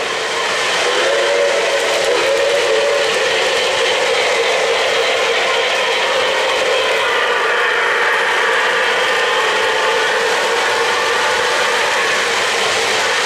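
O-gauge three-rail model trains running past: a steady whir and clatter of metal wheels on track and geared motors.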